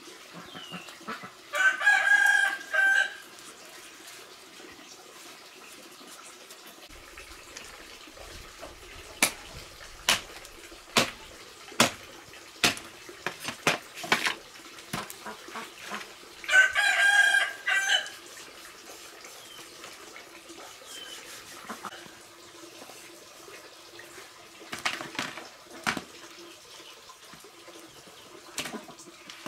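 A rooster crows twice, each crow about a second and a half long, once near the start and once about halfway through. Between the crows come a dozen or so sharp knocks of a cleaver chopping pork on a wooden chopping block, with a few more near the end.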